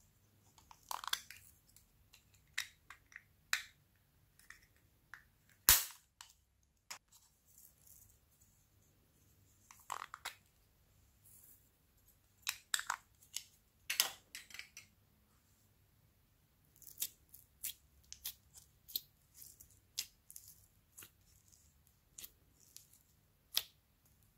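Hands handling slime and small plastic cups and toys: scattered sharp clicks, taps and sticky crackles in irregular clusters. The loudest is a single sharp click about six seconds in.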